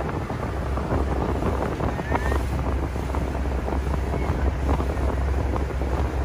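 Wind buffeting the microphone on the open deck of a river ferry under way, in irregular gusts, over the steady low drone of the ferry's engine.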